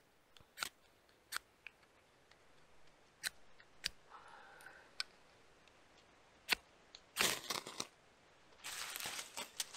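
Ferro rod struck with a steel striker over birch-bark tinder to throw sparks for a campfire: a string of short sharp scrapes, then two longer scraping strokes near the end.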